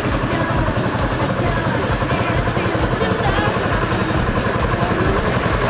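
Engine of a trackless road train running as it rolls along at walking pace, with the chatter of a crowd walking beside it.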